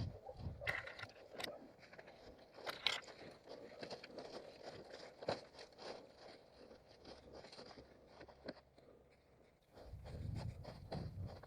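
An orienteering runner's footsteps and brushing through forest ground cover: irregular crunching and scraping of leaf litter and twigs, with a low rumble near the end.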